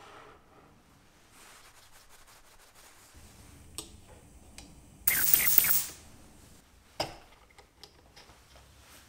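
A short blast of compressed air from a blow gun, just under a second long, clearing chips out of a small drilled hole in a steel part. About two seconds later, a sharp metal click as the chuck key goes into the chuck, with light tapping and handling around it.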